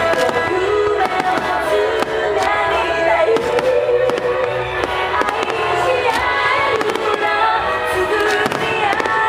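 Fireworks bursting, with sharp cracks scattered through, under loud continuous music with a bending melody line.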